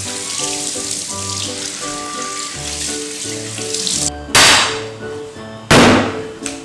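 Kitchen tap running water over squid in a stainless steel sink, with background music. About four seconds in come two loud, short rushing noises, a second or so apart.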